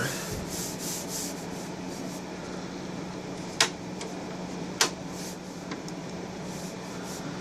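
Power Mac G5 computer running as it boots, its cooling fans giving steady fan noise with a constant low hum. Two sharp clicks a little over a second apart near the middle.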